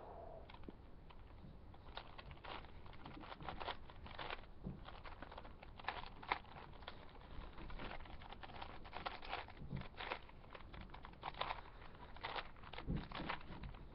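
Plastic 4x4 Rubik's Cube being turned by hand: irregular clicks and scrapes as its slices rotate. The cube has not been lubricated.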